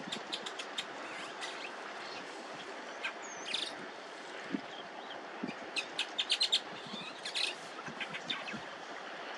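Small birds chirping: quick runs of short high chirps, one at the start and a second about six seconds in, over a steady background hiss.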